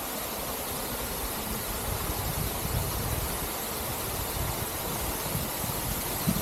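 Steady rushing noise of a tall waterfall.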